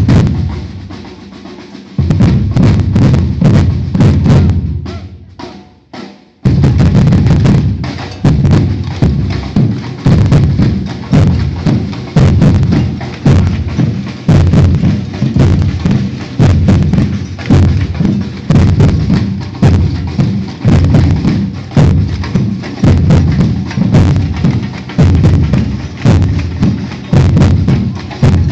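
Batucada percussion ensemble: two heavy accented hits that ring out, a short pause broken by a few light taps, then about six seconds in the full drum groove starts, with deep bass drums pulsing about once a second under snare and higher drums.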